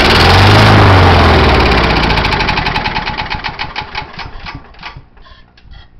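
Kawasaki FC150V single-cylinder engine on a John Deere JX85 mower firing on carb cleaner and running loudly for a couple of seconds, then its firing slows and dies away, the engine stalling after about five seconds. It will not keep running, which the owner takes for a worn-out carburetor.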